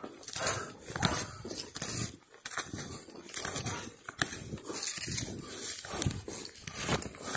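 Footsteps crunching through deep snow in irregular strokes, with twigs and brush rustling against the walker.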